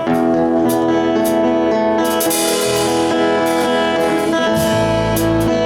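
Band music led by guitar, with a steady beat of sharp ticks; a deeper bass part comes in near the end.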